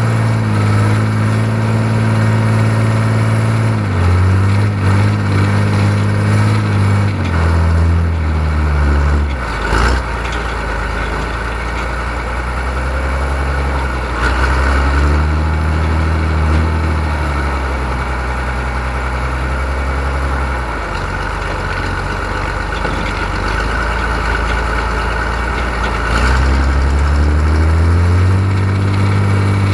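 John Deere 3130 LS tractor's six-cylinder diesel engine running. Its pitch drops in steps several times during the first ten seconds, stays low, and rises again near the end.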